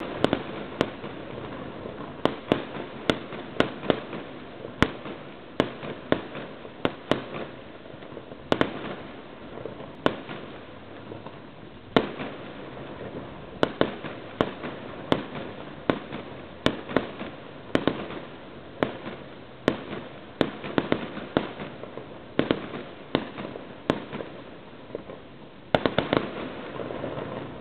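Fireworks exploding in a long, irregular string of sharp bangs, sometimes several close together, over a steady rumble, with a dense flurry of bangs near the end.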